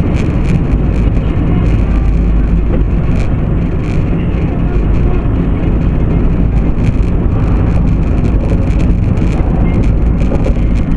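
Steady low engine and road noise of a moving truck, picked up inside the cab by a dashcam's built-in microphone, with occasional light clicks and rattles.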